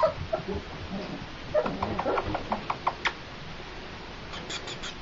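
Flat-coated retriever puppies scrabbling about the wooden whelping box, with a brief yip at the start. About one and a half seconds in comes a quick run of light taps and scratches of claws, about six a second.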